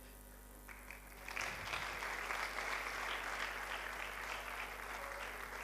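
Congregation clapping and applauding, coming in about a second in and carrying on steadily.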